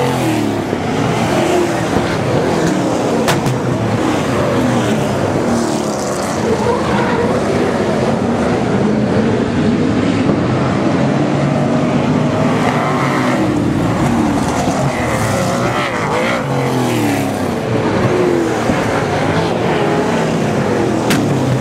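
A field of speedway super saloons racing on a dirt oval, their V8 engines running hard, the pitch rising and falling as cars lap and pass close by.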